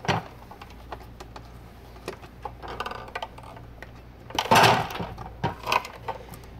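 Hands working wires into a terminal block inside a plastic enclosure: scattered small clicks, taps and rattles, with a louder clatter about four and a half seconds in.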